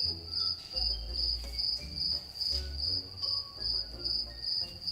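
Cricket chirping: a high, even chirp repeating about two to three times a second, starting and stopping abruptly like an added sound effect. Faint short notes sound underneath.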